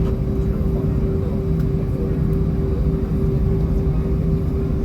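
Airliner engines droning steadily as heard inside the cabin: a deep, even rumble with a steady hum over it.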